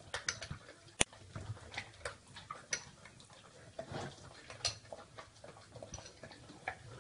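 Dog eating cereal: irregular crunching and clicking as it chews, with one sharp click about a second in.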